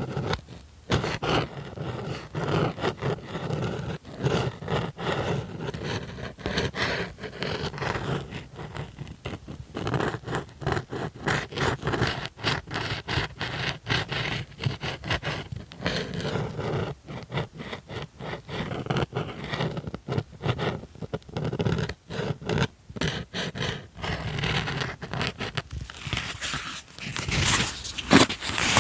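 Rapid, dense tapping and scratching on a small object, many quick clicks mixed with scraping, growing busier near the end.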